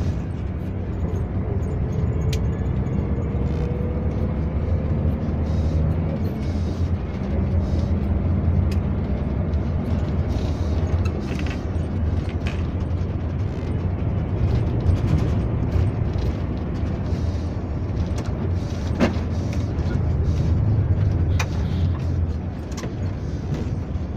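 Karosa LC 736 coach's diesel engine running steadily under way, heard from the driver's seat as a low drone with road rumble. A faint whine rises in pitch over the first few seconds, and scattered sharp clicks and rattles come from the cab.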